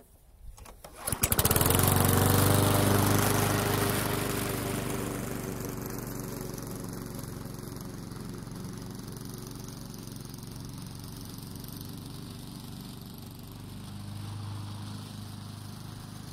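Gas push lawn mower engine starting, catching suddenly about a second in and running loudly. It then fades steadily as the mower moves away across the grass, with a slight swell near the end.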